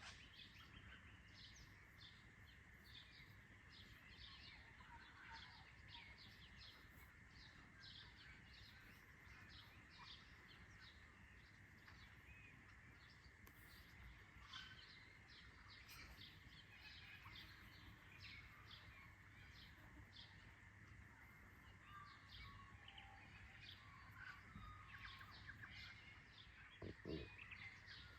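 Faint dawn chorus of small birds chirping in quick, overlapping calls over a steady faint high tone, with a few soft knocks near the end.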